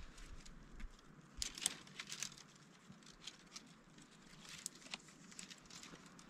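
Faint rustling with scattered light clicks and crinkles as hands work among bare twigs, setting a wire snare tied to a stick.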